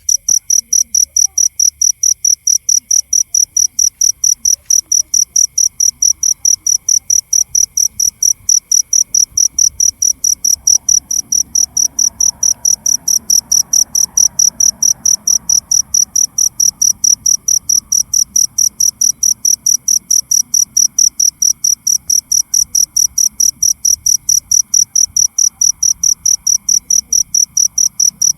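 Field cricket chirping steadily in a fast, even rhythm of about four high-pitched chirps a second, with a fainter steady insect trill behind it.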